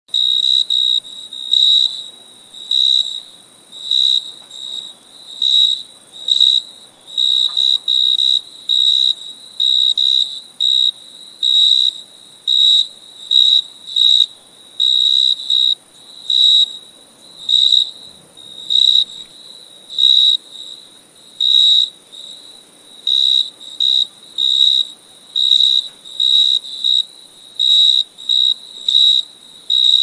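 A cricket chirping: short, shrill chirps repeating evenly, a little over one a second.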